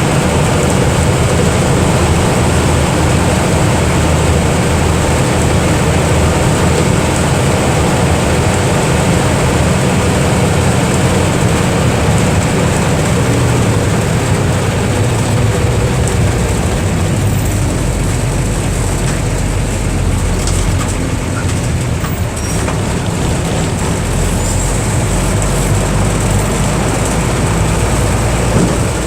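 Mercedes-Benz OF 1318 bus's six-cylinder diesel engine running steadily, its low drone getting stronger about halfway through, with a brief dip in level a little past two-thirds of the way in.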